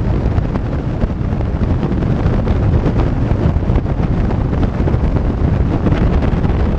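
Loud wind rush and buffeting on the microphone of a BMW R1200GS motorcycle riding at highway speed, with the bike's road and engine noise blended underneath.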